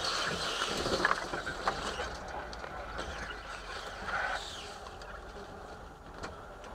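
Suzuki Samurai driving slowly over a rough, overgrown off-road track, heard from inside: a hiss of branches brushing along the body and scattered knocks and rattles over the bumps, louder in the first couple of seconds and then fading, over a low steady hum.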